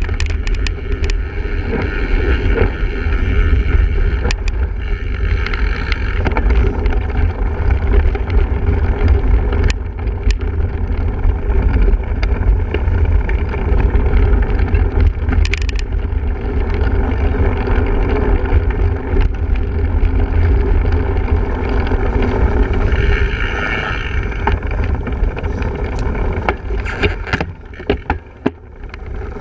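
Wind buffeting the microphone of a camera riding on a single-speed cyclocross bike, a heavy steady rumble with riding noise over it and scattered sharp clicks and rattles from rough ground. The rumble drops away briefly near the end.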